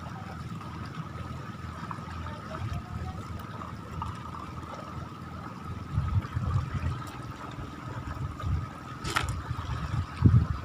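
Seawater washing and trickling at the shoreline, with irregular low rumbles in the second half and one sharp click near the end.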